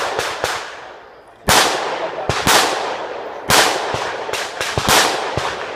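Rifle fire: about a dozen sharp shots in uneven groups, some close together and some a second apart, each crack followed by a long echoing tail.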